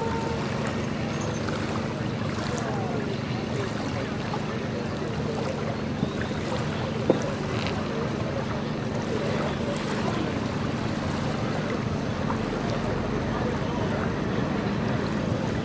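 A small engine running steadily, a low even drone, under the wash of water and wind on the microphone; one sharp knock about seven seconds in.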